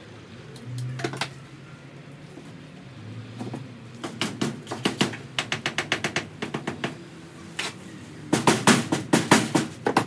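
Quick runs of sharp knocks on the timber framing of a caravan wall, about five a second, in two runs, the second one the loudest.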